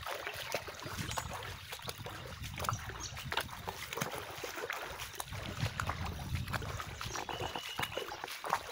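Footsteps splashing and sloshing through shallow, ankle-deep floodwater, in an uneven walking rhythm.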